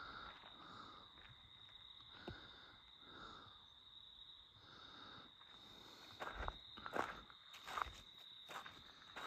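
Footsteps of a person walking: soft, evenly paced rustles through dry leaf litter, turning to louder crunching steps on a gravel road from about six seconds in. A thin, steady high-pitched tone runs underneath.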